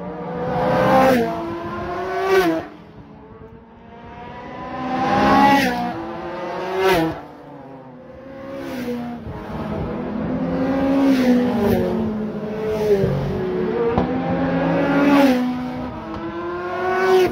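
Modified saloon race cars passing close by one after another at speed, about eight in all, each engine note climbing as it approaches and dropping in pitch as it goes past.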